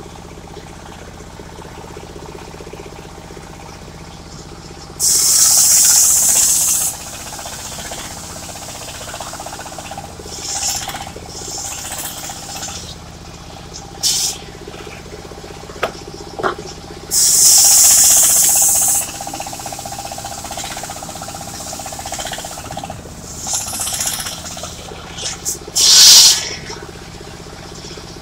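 Portable circular sawmill's engine running steadily, with two loud hissing bursts of about two seconds each and scattered knocks and shorter rasps in between.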